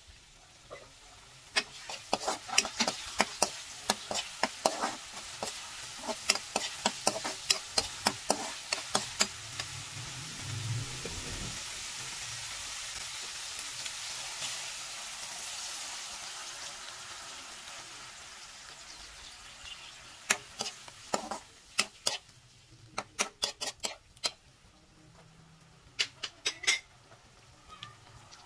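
Spatula clattering and scraping against a wok as vegetables are stir-fried, in quick irregular clicks. About ten seconds in, pineapple juice poured into the hot pan sets off a sizzle that swells and then fades over several seconds as it comes to a simmer. More spatula clatter follows near the end.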